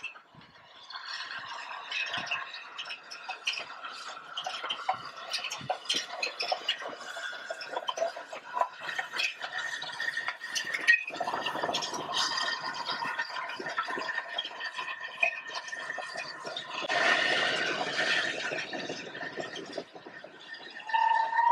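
Steam-hauled train of LNER A3 Flying Scotsman with its carriages running past: a steady stream of clicks and rattles from wheels on the rails, with squealing tones over them. About 17 seconds in there is a two-second rush of noise, and a steady whistle tone begins right at the end.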